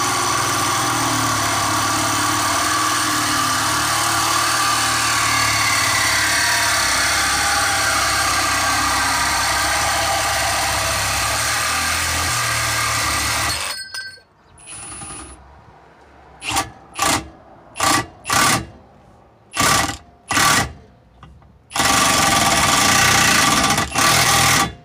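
Cordless reciprocating saw cutting through the steel pipe of a new catalytic converter, a continuous cut lasting about fourteen seconds. Then a cordless impact wrench driving a tailpipe expander tool inside the pipe: several short trigger bursts, then a steady run of about three seconds near the end.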